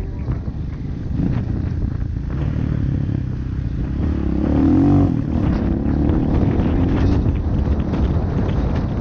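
Off-road motorcycle engine running as it rides over a rough dirt road, with wind rumbling on the microphone. About halfway through the engine revs up, and this is the loudest moment.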